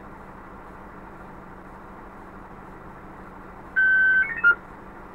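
Steady low engine hum of the idling fire truck, then about four seconds in a loud half-second beep from the two-way radio followed by two or three short chirps, the radio's tones ahead of an incoming transmission.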